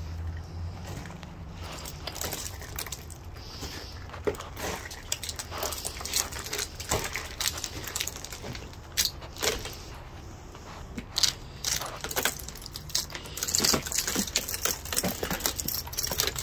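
Ice glaze and icicles on a wooden deck railing being knocked off by hand, cracking, crunching and tinkling as the pieces snap and fall. The crackling comes in clusters of sharp snaps, busiest near the end.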